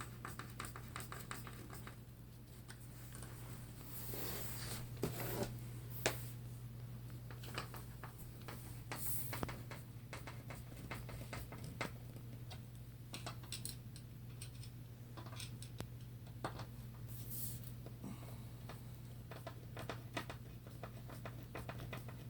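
Screws being turned down by hand with a screwdriver into the drawer pieces: faint scattered clicks, ticks and scrapes, over a steady low hum.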